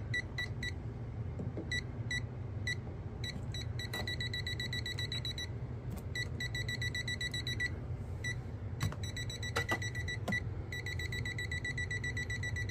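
A multimeter's built-in buzzer beeping as its non-contact voltage detector senses a live cable. It gives high-pitched short pips a few times a second, then fast runs of beeping lasting a second or more, over a steady low hum.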